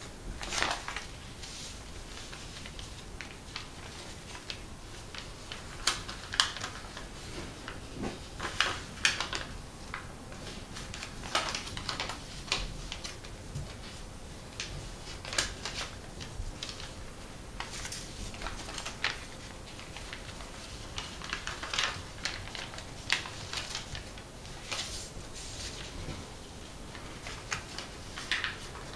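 A sheet of origami paper being folded and creased by hand, with irregular sharp crackles and rustling as the paper is bent and the folds are pressed flat.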